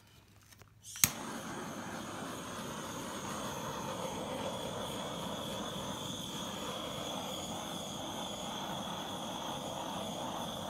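Handheld torch lit with a sharp click about a second in, then its flame hissing steadily, with a faint high whistle in the hiss.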